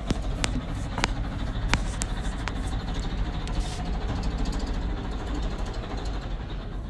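Tractor engine idling with a steady low rumble, with a handful of sharp clicks in the first few seconds.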